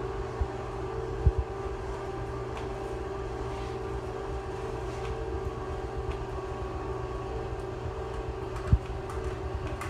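Somfy ST30 wirefree battery motors humming steadily as they lower several cellular shades on reel lift systems. Two brief low thumps sound, about a second in and near the end.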